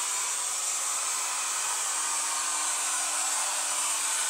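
Small corded handheld rotary tool (drill) running steadily at high speed: an even high-pitched whine and hiss with a steady low hum under it.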